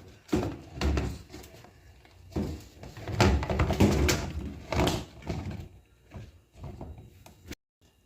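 Irregular knocks and clatter as things in a refrigerator are handled: shelves, drawers or containers bumping and being set down. The sound cuts off abruptly near the end.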